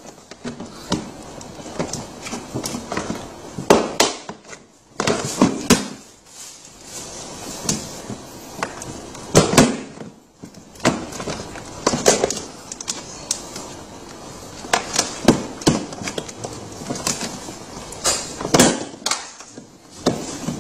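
Hard plastic parts knocking and clicking at irregular intervals as a moulded plastic seat is pushed and worked into its slots in a kids' ride-on truck's plastic body, a tight fit.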